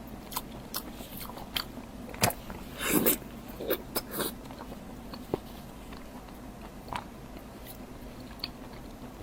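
Close-miked eating: chewing with wet mouth smacks and clicks, the louder bites bunched in the first half and fewer, softer ones after.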